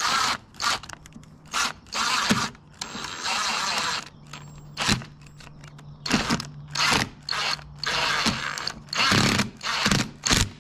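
A large mounting screw being driven back in to refasten a wireless garage-door keypad to the wall, in about ten short, irregular turning strokes of the tool.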